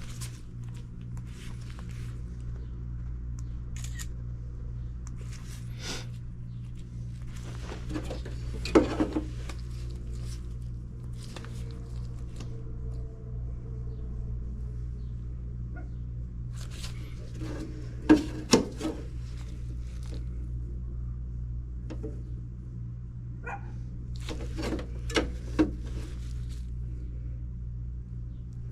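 A steady low mains hum, as from running electrical equipment or a motor, with a few short loud sounds: one about a third of the way in, then two quick pairs later on.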